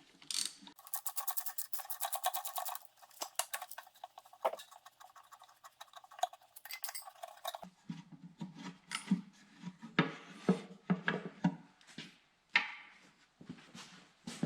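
Hand tools working on metal fittings: a rapid, even run of clicks early on, then scattered metallic clinks and rubbing as parts are handled.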